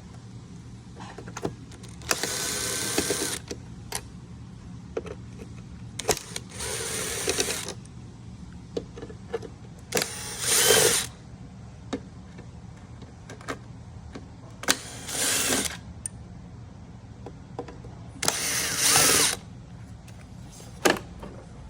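Power drill driving out screws from a dashboard trim panel in five short bursts of about a second each, with small clicks of handling between them.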